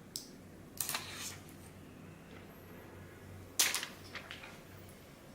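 Protective plastic film being peeled off a car stereo head unit's touchscreen: a few sharp crackles and snaps, the loudest about three and a half seconds in.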